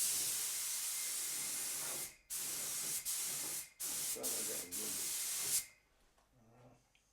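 HVLP paint spray gun hissing as air and paint blow through it, the trigger held for a couple of seconds at a time and released briefly several times. The hiss stops suddenly about five and a half seconds in.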